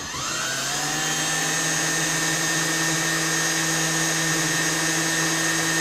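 Electric drill running a small number 36 bit into a turn signal housing: the motor spins up at the start, then holds a steady whine as it cuts.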